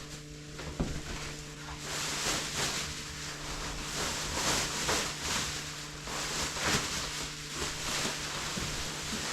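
A butyl-lined painter's drop cloth rustling and swishing as it is pulled and spread over a canopy frame, in uneven swells of noise. A steady low hum runs underneath.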